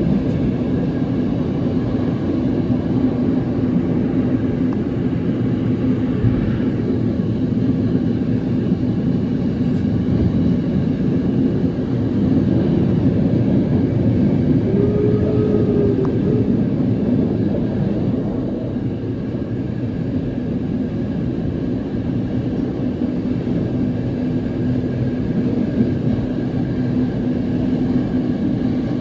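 Heritage steam train's coaches running along the rails, heard from an open coach window: a steady rumble with a low hum. It gets louder partway through while the train crosses a steel truss bridge, and eases off in the last third.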